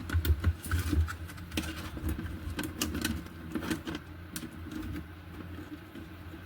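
Light clicks and taps of hands handling the opened LED TV's plastic parts and wiring, frequent for about four seconds and then sparser, over a steady low hum.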